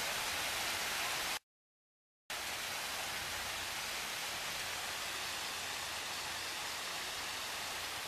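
Steady hiss of stream water running over rocks, broken by about a second of dead silence just over a second in.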